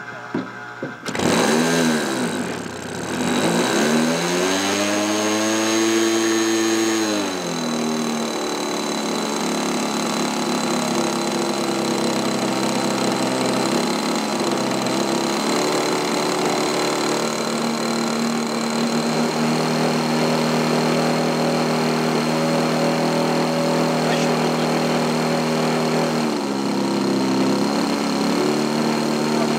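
Small glow-type model-airplane engine of a Lanzo Record Breaker starting: it catches about a second in, climbs quickly to high revs, then drops a few seconds later to a steady lower speed and keeps running, dipping briefly twice.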